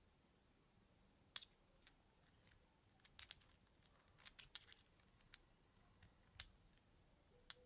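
Scattered light clicks and taps of small parts and tools being handled while a model nitro engine is assembled by hand, a little more than a dozen over the stretch, some in a quick cluster about halfway through.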